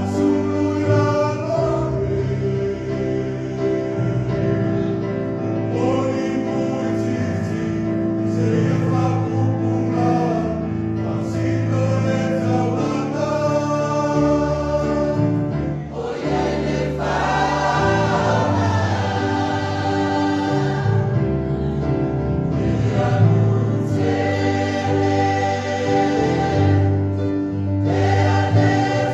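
Church choir singing a Samoan offering hymn (pese taulaga), with long sustained notes.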